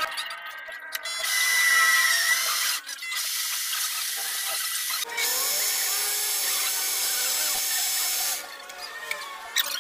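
Small metal lathe running and cutting metal: a drill bit in the tailstock chuck boring into the spinning workpiece, then a tool bit cutting its end, with a high hiss and steady whine from the cut. The sound comes in several stretches that change abruptly.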